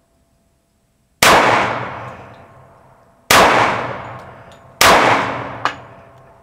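Three shots from a Springfield Armory Champion Operator .45 ACP pistol. The first two are about two seconds apart and the third follows about a second and a half later. Each shot is followed by a long echo that dies away, and a short sharp tick comes shortly after the third shot.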